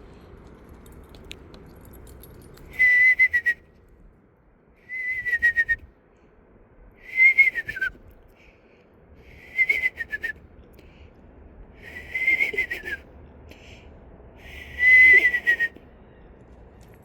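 A high whistled call repeated six times, about every two seconds, each note dipping slightly in pitch at its end.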